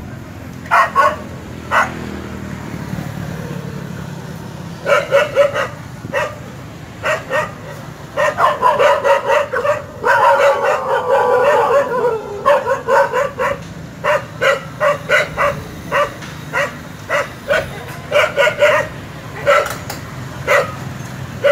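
Several village dogs barking in short, sharp volleys, many barks in quick succession, with a denser unbroken stretch of overlapping barks and yelps from about eight to twelve seconds in.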